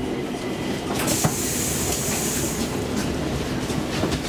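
Stockholm Metro C15 train heard from inside the car, slowing into a station: a steady rumble of wheels on rail with a few sharp clicks over the rail joints, and a brief high hiss about a second and a half in.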